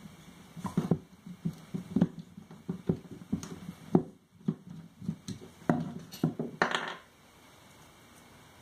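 Irregular knocks, taps and clatter of hard objects being handled, with a short scrape just before they stop about seven seconds in; low room tone after.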